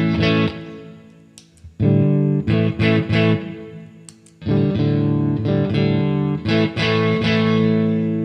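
Electric guitar played through a Demonfx Prince of Sound overdrive pedal, a clone of the Analog Man Prince of Tone, in boost mode with the drive rolled right back. Strummed chords in three phrases, each left to ring and fade. A fresh phrase starts about two seconds in and another about four and a half seconds in.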